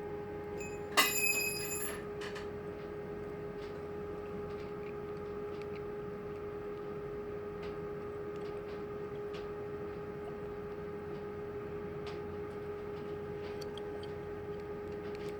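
Faint small metal clicks from working a blank key and shim in a pin-tumbler lock cylinder, with one sharp metal clink about a second in that rings briefly. A steady hum runs underneath.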